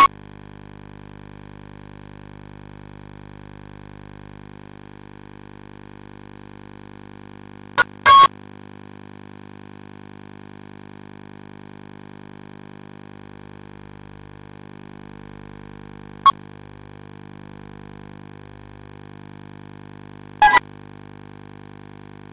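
Steady electrical hum, broken by short loud crackles: a double one about eight seconds in, then single ones about sixteen and twenty seconds in.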